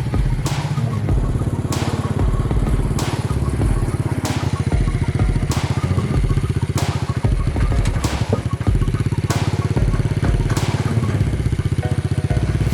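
Small engine running steadily, with a sharp knock about every second and a quarter.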